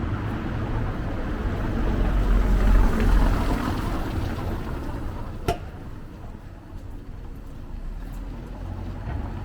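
A motor vehicle passing in the street, its rumble swelling to loudest about two to three seconds in and then fading away. A single sharp click comes about five and a half seconds in.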